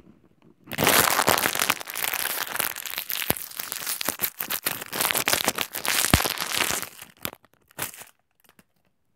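A shiny wrapper being crumpled and scrunched in the hands: a dense crinkling crackle that starts about a second in, goes on for some six seconds, then thins to a few scattered crinkles.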